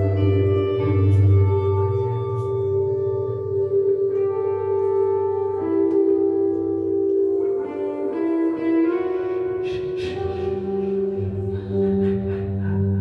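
Live ambient music with held drone tones and scattered higher notes, plucked-string-like. A low bass note drops out around the middle and returns near the end.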